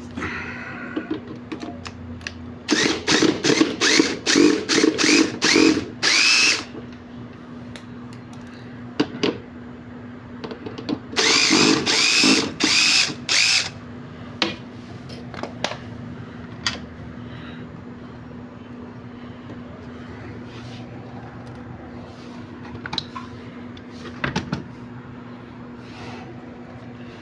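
Cordless power drill or screwdriver running in short trigger bursts, each whining up in pitch as it spins, in a quick run of about eight and then, after a pause, four more. Small clicks and knocks of tools and parts follow, over a steady low hum.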